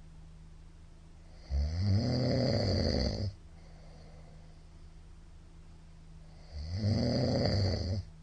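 A middle-aged man snoring loudly in his sleep: two long snores about five seconds apart, each lasting just under two seconds. A faint steady hum sits underneath between them.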